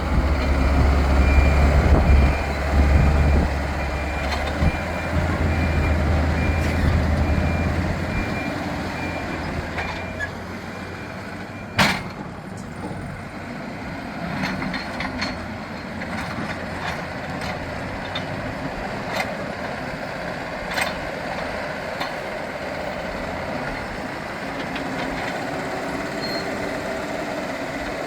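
Hidromek 102S backhoe loader working its front bucket, the diesel engine running hard with a heavy low rumble for the first several seconds and then easing off. A reversing alarm beeps steadily for the first ten seconds or so, and there is one sharp metallic knock about twelve seconds in.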